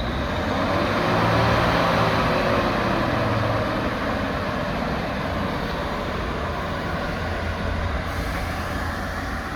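Diesel multiple-unit train running close by, its engine humming low under a steady rush of noise, loudest in the first few seconds and easing slightly after.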